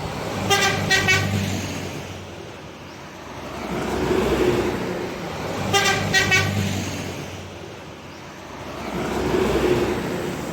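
Bus 'telolet' multi-tone horn sounding twice, each a quick burst of three notes, about half a second in and about six seconds in. Between the horn bursts, passing vehicles' engine and tyre noise swells and fades twice.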